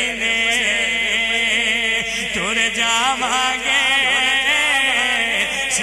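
A man's voice singing a Punjabi naat through a microphone and PA, drawing out long ornamented notes that bend up and down, with no clear words.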